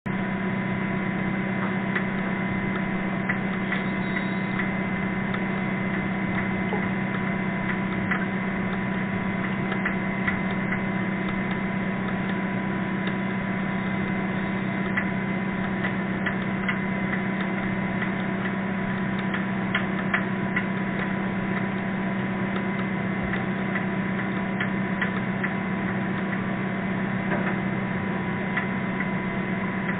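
Underwater hydrophone sound of a dredging boat: a steady low hum with a few held tones and an irregular ticking. A brief beluga whale pulsed call sounds faintly under it about four seconds in.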